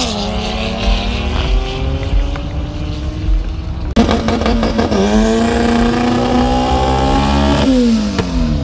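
Drag-racing cars accelerating hard down the strip, engine pitch climbing steadily. The sound breaks off suddenly about four seconds in, a second run climbs the same way, and the pitch falls away near the end.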